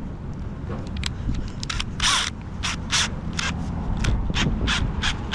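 Hand ratchet wrench being worked in quick back-and-forth strokes, about three clicking strokes a second, starting a couple of seconds in.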